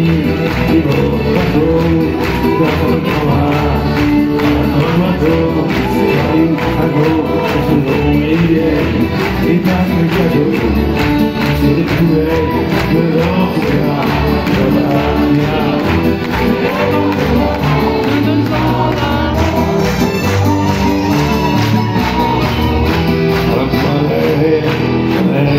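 A live band playing a chanson: accordion, acoustic guitar, piano and a small string section of violins and cello.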